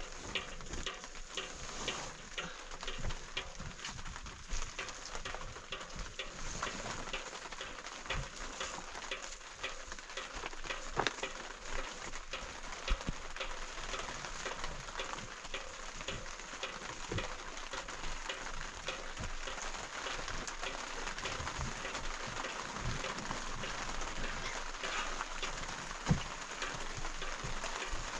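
Rain falling steadily, with many separate drops ticking sharply on a hard surface throughout.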